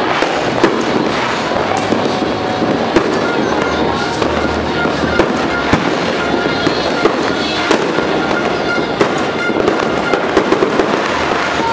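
A mini sawa string of firecrackers going off: a dense, continuous rattle of small bangs with louder, sharper cracks scattered all through it.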